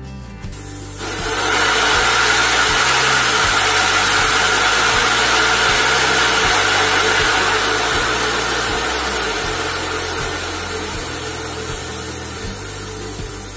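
High-pressure air venting from a Yong Heng PCP air compressor through an opened valve: a loud, even hiss that starts about a second in and slowly fades as the pressure bleeds down.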